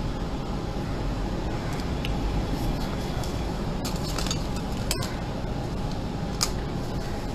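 Steady low background rumble, with a few faint light clicks and a sharper click about six seconds in.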